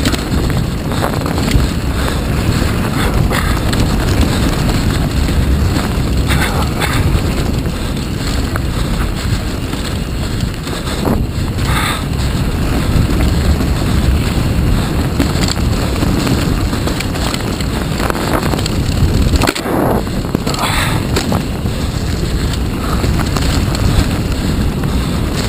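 Mountain bike riding fast down a dirt forest trail: a steady rumble of wind on the microphone and tyres rolling over dirt, with a few knocks and rattles from the bike over bumps.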